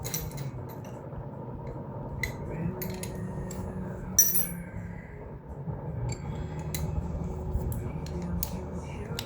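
Scattered light metallic clinks and clicks of hand tools, sockets and a ratchet on metal during engine-bay work, with one sharper click about four seconds in, over a steady low hum.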